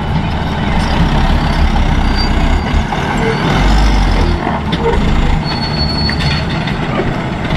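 Light dump truck's diesel engine running with a steady low rumble while its raised tipper bed dumps a load of soil, the earth rushing and sliding off the bed.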